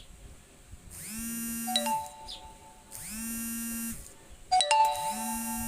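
Mobile phone ringing for an incoming call: a ringtone about a second long repeating roughly every two seconds, with a sharp chime in two of the rings.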